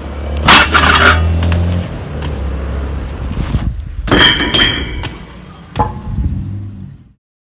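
BMX bike riding on pavement and over a metal storm-drain grate, with sudden knocks of tyre and landing impacts and a clanging rattle of the grate about four seconds in, over a steady low rumble.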